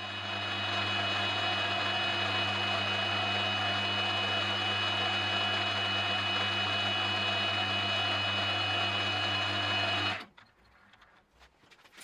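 Milling machine running a 45-degree chamfer mill along the edge of a slot in a bronze block to deburr it: a steady hum with a high whine over a noisy hiss, which cuts off about ten seconds in.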